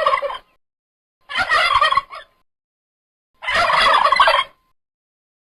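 Turkey gobbling: three gobbles, each about a second long and about a second apart, the first already under way at the start.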